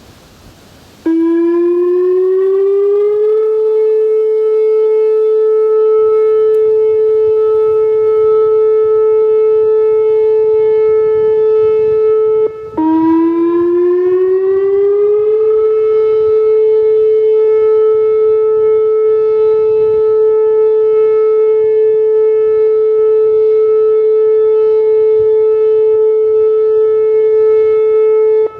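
Whelen 2805 electronic outdoor warning siren sounding its monthly test. The siren starts about a second in with a rising glide into a loud steady tone. Near the middle the tone drops out briefly, then rises again and holds.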